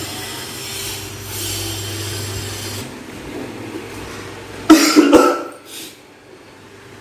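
A person coughing: a short run of harsh coughs about two-thirds of the way in, after a steady scratchy noise through the first half.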